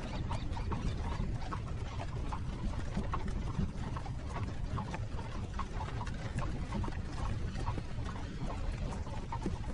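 Horses' hooves clip-clopping at a steady pace over the continuous low rumble of a horse-drawn carriage rolling along.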